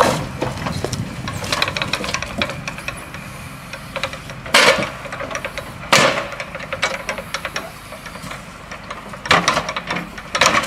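Truck-mounted timber crane working logs: a few sharp wooden clunks as logs and the steel grapple knock against each other and the load, over the engine's steady running and some rattling.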